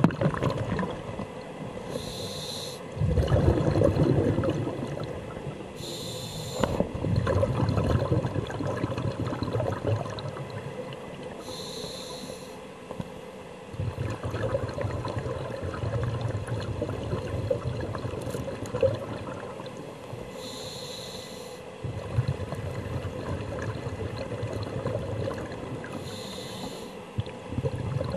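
Scuba diver breathing through a regulator underwater: a short hiss at each inhalation, about every six seconds, each followed by a longer spell of exhaled bubbles.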